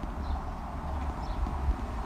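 Steady rumble and rattle of travelling over a brick-paved street, with wind buffeting the camera microphone.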